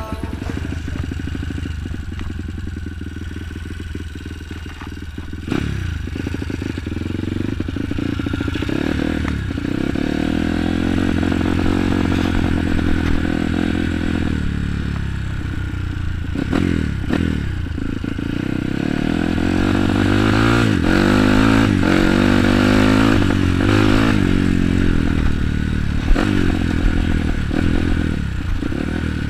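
Bored-out Kawasaki KLX dirt bike's single-cylinder four-stroke engine revving under way, its pitch rising and falling again and again with throttle and gear changes, with scattered knocks from the bike.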